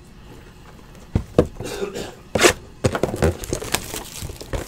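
A trading card pack is being handled and torn open by hand: crackling and tearing of the packaging, with several sharp knocks, beginning about a second in. One short, sharp tear about two and a half seconds in is the loudest.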